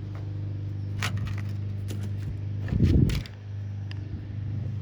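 A steady low hum throughout, with a few sharp clicks and a louder knock about three seconds in, as tools and parts are handled.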